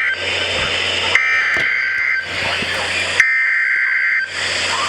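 EAS SAME header tones from a NOAA Weather Radio receiver: two screechy digital data bursts, each about a second long, one about a second in and one about three seconds in, with roughly a second of radio hiss between them. The data bursts announce the start of a new alert message.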